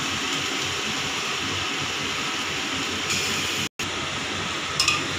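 Chopped onion and tomato sizzling steadily in hot oil in an aluminium pressure cooker, with a steady even hiss. The sound cuts out for an instant about three-quarters of the way through.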